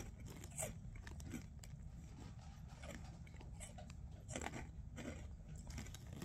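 A person chewing a mouthful of Buffalo Cheetos corn snacks: faint, irregular crunches, with slightly louder ones about half a second in and around four and a half seconds.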